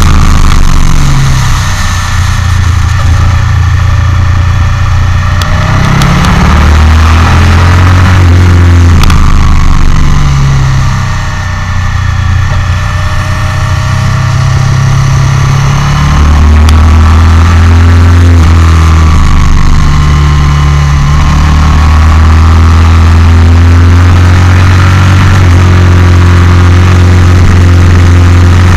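Motorcycle engine heard from an onboard camera at racing speed, its note stepping up and down through the gears; it eases off around eleven seconds in, then pulls hard and holds a steady high note from about sixteen seconds on.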